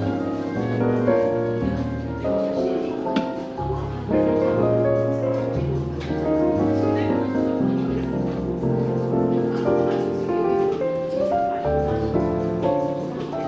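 Smooth jazz piano music, with low bass notes changing every couple of seconds under the piano.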